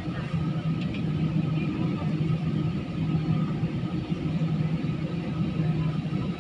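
Steady low hum of a jet airliner's engines and airflow heard inside the passenger cabin while the plane taxis on the ground.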